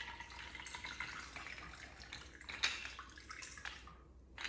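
A shaken cocktail being strained from a metal cocktail shaker into a glass of ice: a thin, steady stream of liquid pouring, with a few light clicks, tailing off near the end.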